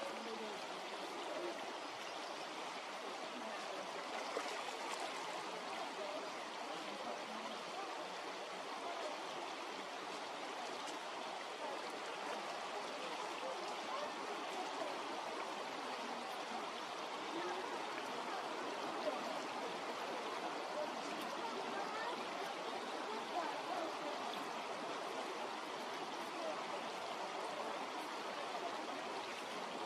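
Stream water flowing steadily with a light trickling rush.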